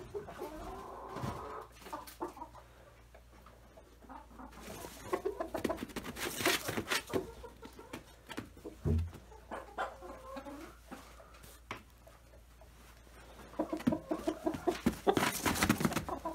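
Chickens clucking in several short bouts, with scratchy clicks mixed in and a single dull thump about nine seconds in.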